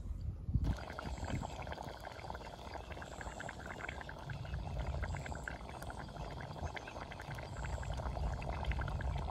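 Mutton curry simmering in a kadhai over a wood fire: a steady bubbling sizzle full of fine crackling pops, starting about half a second in.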